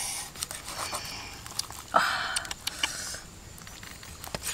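A cleaver cutting into a whole grilled fish with charred skin: scattered crisp clicks and knocks of the blade through the skin and bones, with a short hissing rush about two seconds in.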